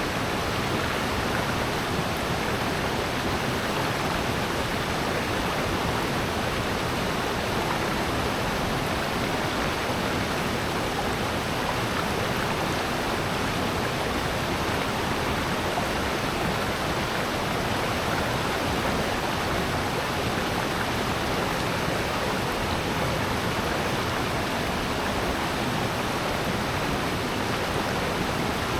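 Mountain stream rushing and splashing over rocks in a gorge, a steady, unbroken rush of water.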